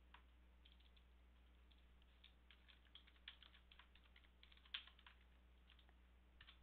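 Faint computer keyboard typing: a quick run of key clicks over about four seconds, then two more keystrokes near the end, over a faint steady low hum.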